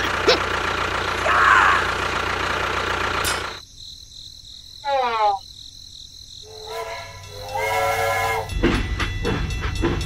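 A steady engine drone that cuts off suddenly about three and a half seconds in. A short falling tone follows, then a horn-like whistle holds for about two seconds, and the engine noise comes back near the end.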